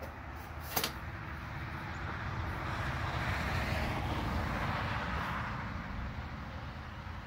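Rushing noise of a passing vehicle that swells from about two seconds in and fades near the end, with a sharp click just under a second in.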